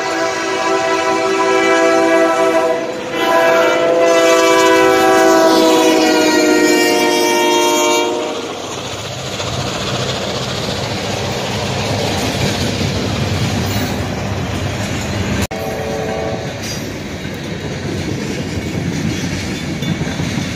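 Freight locomotive's multi-tone horn sounding two long blasts, the second falling in pitch as the locomotive passes, followed by the rumble and clatter of freight cars rolling by. Later a short, fainter horn sounds over steady rail noise.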